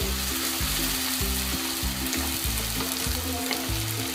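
Sliced onions and ginger-garlic paste sizzling in hot oil in a nonstick pan as they are stirred with a wooden spatula. Background music plays underneath.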